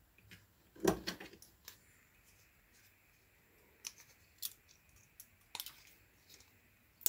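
Hardened steel bars of a file guide being handled and fitted together by hand: light metal clicks and clacks, a short clatter about a second in being the loudest, then single clicks every second or so.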